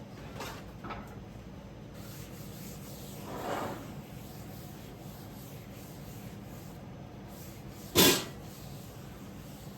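A cloth wiping a surface in short rubbing strokes, with a longer swish about three and a half seconds in. About eight seconds in comes one sharp, loud knock.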